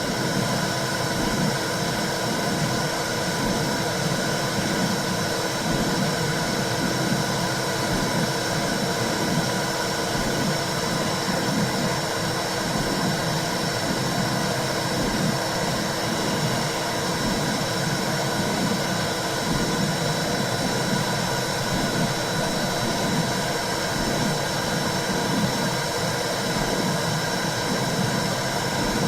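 Womb-sound track for soothing a baby: a steady full hiss with a few faint steady hums, over a rhythmic low whooshing pulse.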